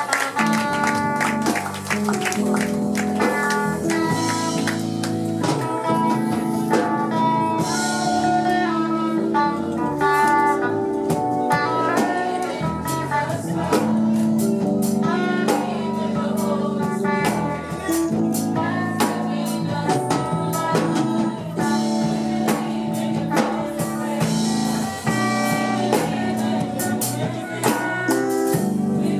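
Live church music with singing, guitar, bass and drums, played with a steady beat.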